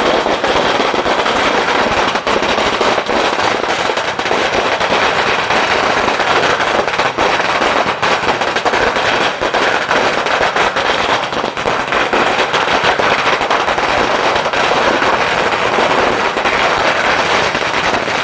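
A long string of firecrackers going off in a dense, continuous rapid crackle, loud throughout.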